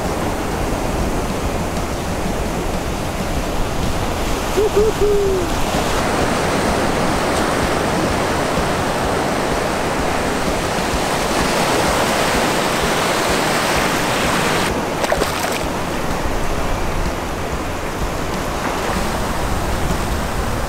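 Ocean surf breaking and washing up the beach, a steady rushing noise, with a short hooting call about five seconds in.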